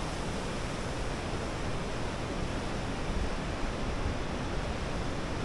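Steady wind rushing past and buffeting the microphone, with a flickering low rumble and no distinct events.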